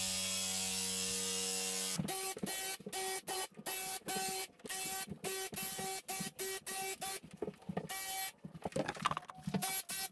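Graco handheld electric cup paint sprayer spraying primer, humming steadily for about two seconds, then buzzing in many short on-off bursts as the trigger is pulled and released.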